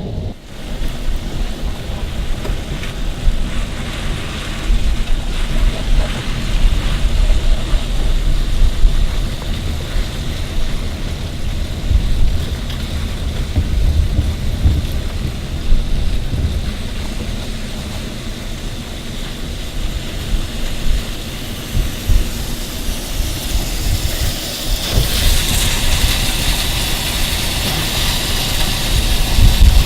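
Car driving through heavy rain: a steady low rumble of engine and road with a hiss of rain and water over it. The hiss grows louder near the end.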